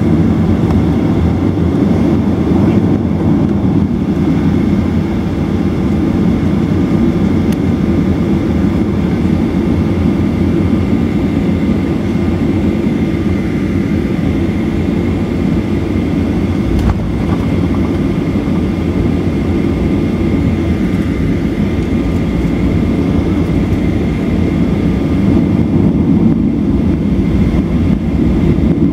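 Boeing 737-900's CFM56 jet engines running steadily, heard inside the passenger cabin as a constant low rumble with a faint high whine.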